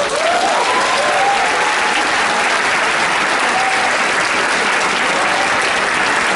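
Theatre audience breaking suddenly into loud, steady applause at the end of a tango number, with a few voices calling out over it in the first couple of seconds.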